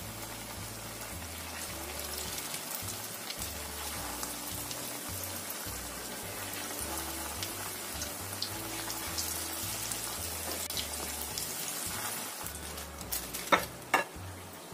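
Tofu martabak rolls in spring-roll wrappers deep-frying in plenty of hot oil: a steady sizzle full of small crackles and pops. Near the end come two sharp clicks.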